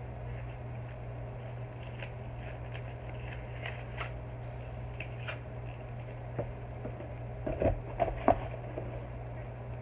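Hands opening a package: scattered light clicks and taps, then a few sharper, louder knocks about three-quarters of the way through, over a steady low hum.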